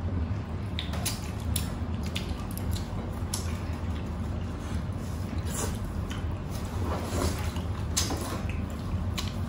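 Close-miked eating: wet chewing and mouth clicks, with scattered soft squishy ticks from food handled by hand, over a steady low hum.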